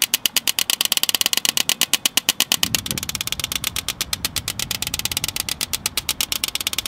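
Spark igniter of an outdoor gas broiler clicking rapidly and evenly, about ten clicks a second, while the burners are being lit. About three seconds in, a low rush joins underneath as the burners catch with a blue flame.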